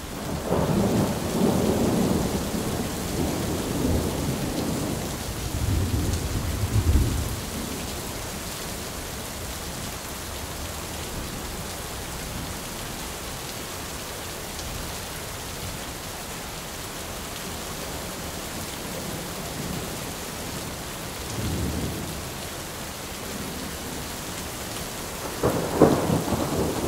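Steady rain with rolling thunder: a long, heavy rumble through the first several seconds, then shorter rumbles about three-quarters of the way through and again near the end.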